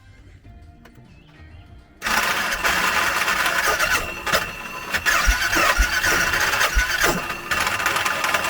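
A Bennche Cowboy UTV's two-cylinder engine being cranked over by its starter for a compression test, starting about two seconds in and not firing, with a few sharp knocks. The cylinder barely reaches 70 psi and spits raw fuel, a sign of internal damage that the owner suspects is a snapped timing chain.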